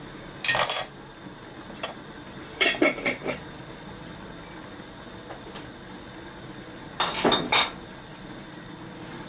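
Spoon clinking against a container while spices are measured out, in three short bursts of several clinks each: once near the start, again about three seconds in, and again near the end.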